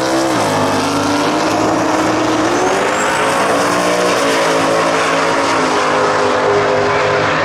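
Drag race cars accelerating hard down the strip after launch. Engine pitch climbs, drops back at each gear change and climbs again several times, the sound staying loud throughout.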